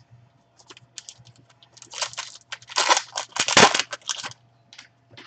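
Foil trading-card pack wrapper being torn open and crinkled by gloved hands, in several loud crackly bursts, the loudest about three and a half seconds in, after a few faint clicks.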